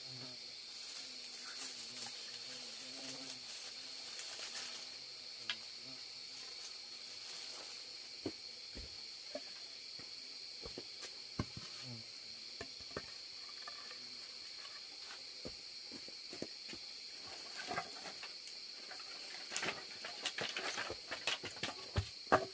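Dry split bamboo kindling and wooden logs and poles being laid on a dirt-floor fire pit under a rebar trivet: scattered light clicks and rustles, then a run of louder wooden knocks and clatters near the end. A steady high insect chirring runs underneath.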